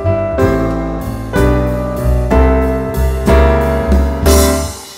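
Piano music: chords struck about once a second, each ringing and fading. A louder chord near the end dies away into a brief pause.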